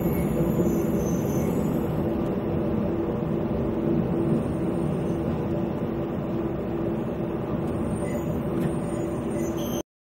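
JR West KiHa 120 diesel railcar heard from inside, its engine and running gear making a steady hum with a few low tones as it runs slowly into a station. The sound cuts off abruptly near the end.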